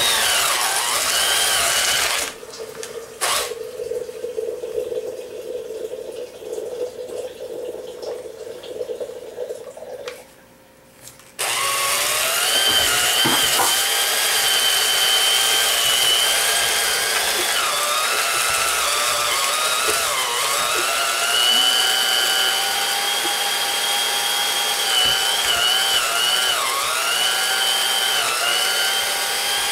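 Electric hand mixer beating cookie dough in a bowl, its motor whining. It runs loud for about two seconds, softer for most of the next eight, stops briefly, then runs loud again from about eleven seconds in, its whine dipping in pitch a few times.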